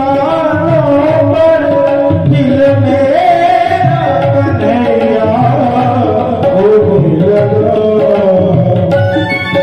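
Male voice singing a long, gliding melodic phrase of a Hindi Krishna bhajan, with tabla playing a steady rhythm and electronic keyboard accompaniment. Near the end the voice stops and the keyboard carries on with held notes.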